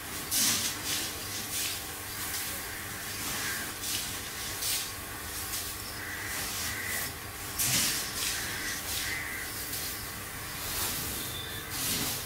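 Puffed-rice processing machinery running: a steady electric-motor hum under irregular hissing rushes of puffed rice sliding and shaking through a sieve and chute, every second or few.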